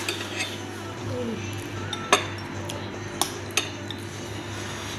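Cutlery clinking against dishes during a meal: a handful of sharp clinks, the loudest about two seconds in, over a steady low hum.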